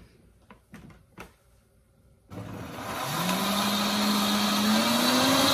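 A few light knocks as the blender lid is pressed on. About two seconds in, a countertop blender starts and runs steadily, its motor rising in pitch as it speeds up, puréeing a liquid chipotle-cream sauce.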